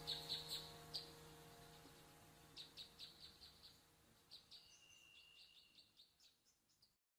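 Background soundtrack fading out: a held low chord dies away under clusters of quick, faint, high chirps, and the sound cuts off near the end.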